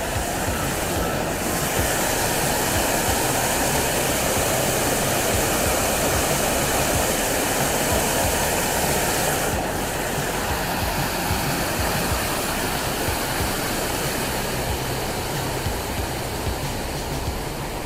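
Steady rush of a creek's white water tumbling over rocks at the falls, a little louder in the first half and easing slightly toward the end.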